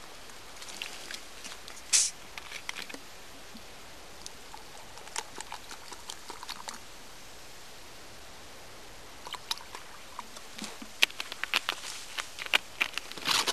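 Scattered small clicks and crackles from a metal pot and a plastic water bottle being handled beside a camp stove. One sharp click comes about two seconds in, and the clicks grow thicker near the end.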